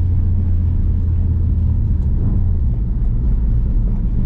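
Ford Focus RS's 2.3-litre turbocharged four-cylinder engine running steadily while driving, its pitch dropping about two and a half seconds in.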